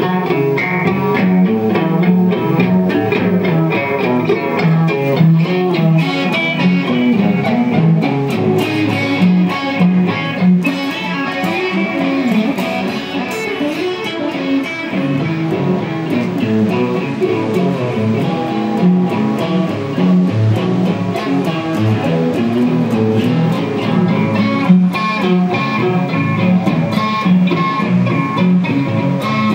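Guitar music: a stream of quickly changing plucked notes.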